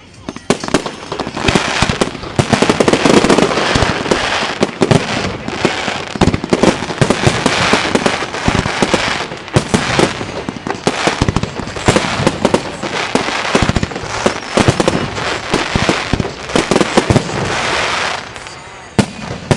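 Fireworks display in a rapid barrage: many shell bursts a second over a continuous crackle. It dies down about 18 seconds in, with one last bang near the end.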